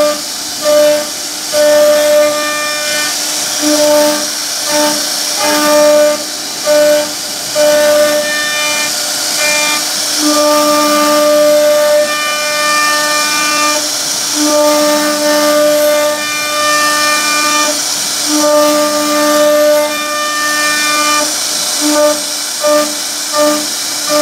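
CNC wood router spindle carving grooves in a wooden panel: a steady high hiss of cutting, with a humming tone of unchanging pitch that comes and goes as the bit works along the cuts, in short bursts and some longer stretches of several seconds.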